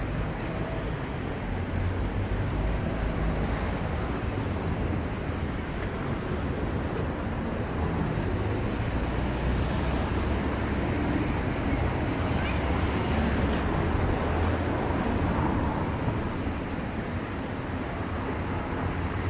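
Steady outdoor noise with a low, fluctuating rumble and a rushing haze: road traffic and wind around a bridge over a fast-flowing, swollen river, with no single sound standing out.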